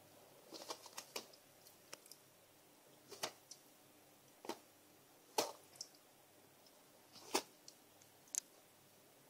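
A cat pawing, clawing and biting at a sheet of kitchen roll: faint, irregular short crackles and clicks of paper being scrunched and torn, about ten in all, the loudest near the middle.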